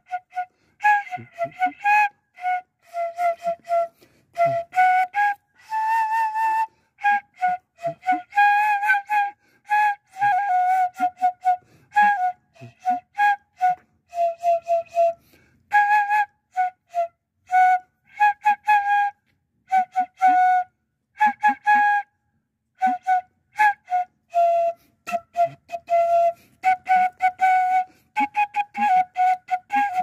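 A flute-like tune of short, steady notes with many abrupt breaks between phrases.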